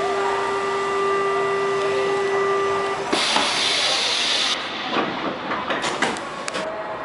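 On board a CPTM Series 5500 commuter train, a steady door warning buzzer sounds for about three seconds. A loud burst of air hiss follows as the doors close, then a series of knocks and clunks.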